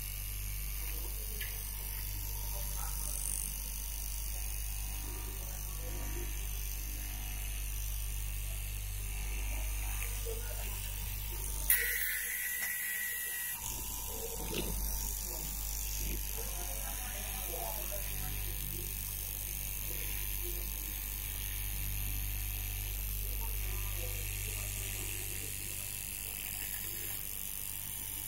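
Electric straight-knife cloth cutting machine running through a stack of knit fabric layers: a steady low motor hum with a light mechanical rattle from the reciprocating blade. About twelve seconds in there is a sharp click and a short high tone, and the hum drops out for a couple of seconds before resuming.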